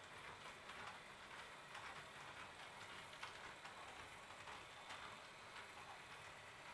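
Faint irregular clicking of a Roco HO-scale model train's wheels running over the track and rail joints, over a soft steady hiss.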